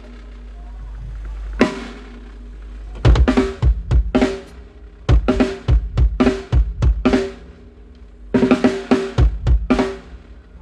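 Acoustic drum kit on a live stage: two single cymbal-and-drum hits over a steady low hum, then about three seconds in, runs of quick kick and snare hits with short fills, a brief pause, and another run near the end, as in a drum sound check.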